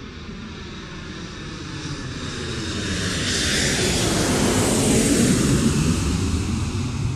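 Engine noise with a rushing hiss, swelling steadily louder to a peak about five seconds in, then easing slightly.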